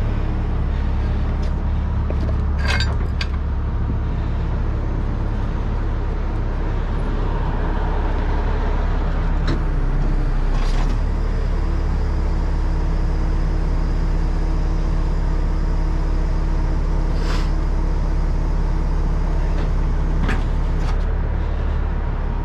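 Heavy tow truck's engine running steadily, with a few short, sharp clanks scattered through.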